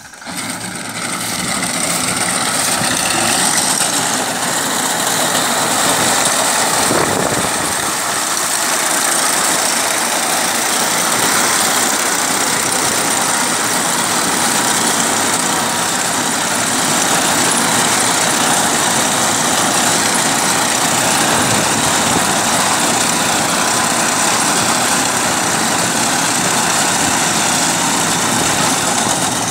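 Massey Ferguson 241 DI tractor's three-cylinder diesel engine running with its front-mounted reaper cutting tall grass: a steady mechanical noise that grows louder over the first few seconds as the tractor comes close, then holds level.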